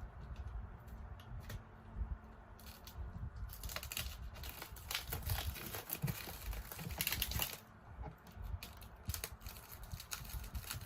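A large parcel being opened by hand: packaging tape and wrapping torn and cut, with crinkling and rustling. The tearing comes in a dense run of bursts from about two and a half to seven and a half seconds in.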